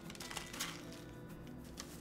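Quiet background music, with a faint rustle of a kraft paper pouch being handled and set down.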